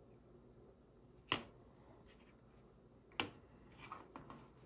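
Sharp clicks and light taps of small hard objects being handled on a workbench: two crisp clicks about two seconds apart, then a few lighter taps near the end.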